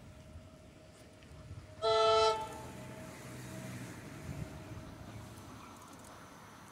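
A train's whistle sounds once, short and loud, about two seconds in, as several clear tones together. A low rumble from the approaching train follows.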